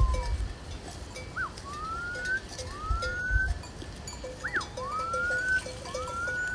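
Bells on a flock of sheep tinkling steadily as the flock grazes, while someone whistles four rising whistles of about a second each, two of them starting with a quick up-and-down flick.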